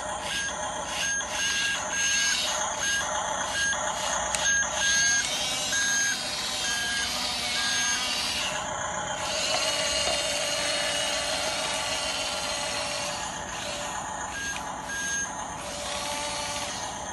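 Radio-controlled model bulldozer's electric motors and gears whirring and grinding, with an intermittent reversing beep that stops about halfway and returns briefly near the end.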